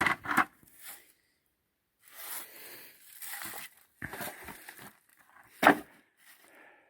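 Irregular rustling and scraping handling noises, with one sharp knock a little before the end.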